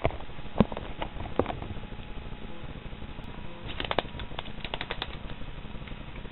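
Footsteps and scuffs on a concrete floor, mixed with handheld camera handling noise: scattered light clicks and knocks, with a quick run of them about four seconds in.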